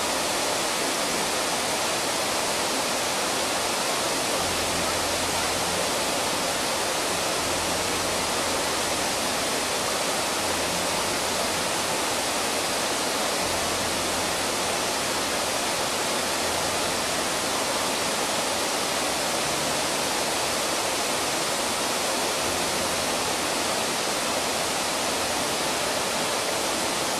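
Water pouring over a concrete weir: a steady, even rush of falling water that starts and cuts off abruptly.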